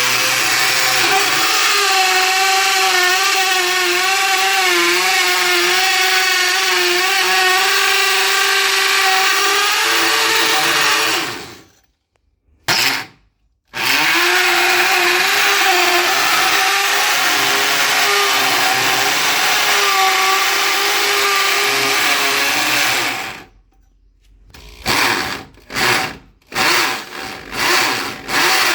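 Vonder electric drill drilling into concrete, the motor running at a steady, slightly wavering pitch. It runs for about eleven seconds, stops, gives a short burst, then runs again for about ten seconds. Near the end come several short bursts, as the trigger is pulsed on and off.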